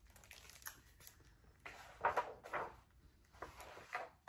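Soft rustles and knocks of a hardcover picture book being handled, turned round and its cover opened, in a few short bursts, the loudest about two seconds in.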